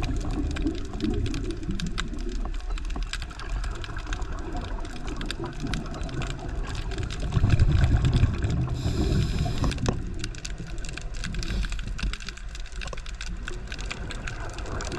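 Scuba diver breathing through a regulator underwater: a rumbling burst of exhaled bubbles about halfway through, then a short hiss of inhalation, over a steady crackle of fine clicks.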